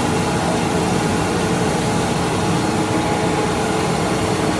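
Metal lathe running steadily, its motor and spindle giving an even hum with a faint whine, while the tool cuts the bolt stock.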